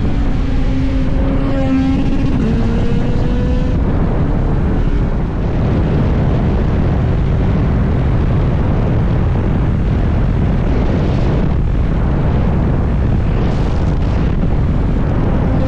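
Motorcycle engine running under way with wind rush on the microphone. Its engine note drops in pitch about two seconds in, then is mostly covered by the steady rush.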